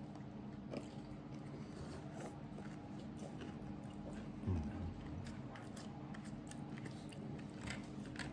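Spoons scraping and clicking in aluminium foil pudding trays, with faint chewing, over a steady low hum. One brief louder low sound about four and a half seconds in.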